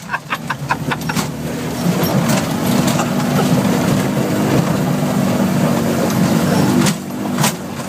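Land Rover Defender 90's diesel engine pulling hard under load, heard from inside the cab. The engine note drops away about seven seconds in.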